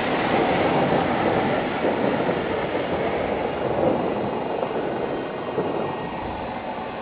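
Distant fireworks barrage, many bursts running together into a steady rolling rumble and crackle.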